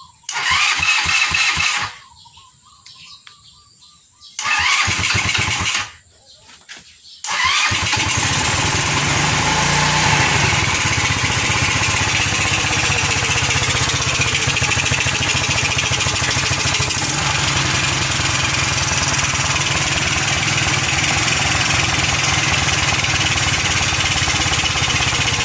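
Single-cylinder four-stroke GY6 scooter engine on its electric starter: two short starting attempts, then it catches a little after seven seconds and keeps running steadily.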